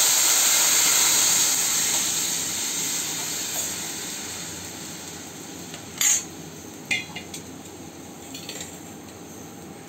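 Tamarind water poured into hot sesame-oil tempering in a kadai, hissing and sizzling loudly at first and dying down over the next few seconds. A steel spoon clinks against the pan a few times about six to seven seconds in.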